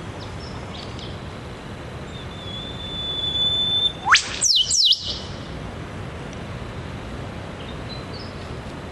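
Eastern whipbird pair duetting. The male gives a long, steady whistle that ends in a sharp, rising whip-crack, and the female answers at once with two quick falling notes. A few faint short notes come near the start and near the end.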